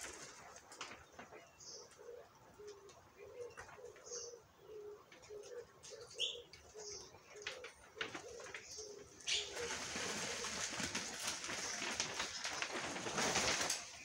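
A dove cooing in a long run of short low notes, two or three a second, for the first two-thirds. Then, from about nine and a half seconds in, a louder rush of splashing and wing-fluttering as a blue whistling thrush bathes in a water-filled hollow in a log.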